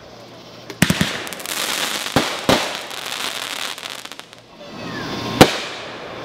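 Aerial fireworks bursting: a quick cluster of bangs about a second in, two more bangs a little after two seconds, then a spell of crackling near the four-second mark, and the loudest single bang about five and a half seconds in.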